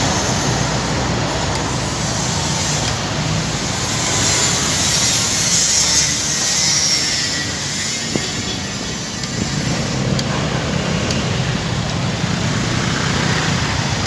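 Heavy city street traffic heard from a moving two-wheeler: a steady low rumble of truck and vehicle engines with road and wind noise, a stronger hiss in the middle, and one sharp tick about eight seconds in.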